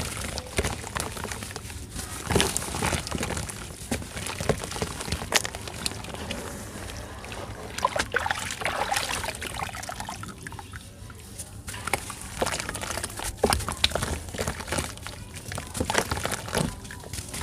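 Packed chunks of red sand crumbling and breaking apart, with irregular sharp crunches and cracks throughout.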